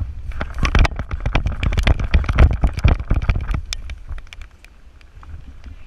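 Someone running with a camera: quick, irregular footfalls and rattling gear over a heavy low rumble from the jostled microphone. It eases off after about three and a half seconds into a few fainter clicks.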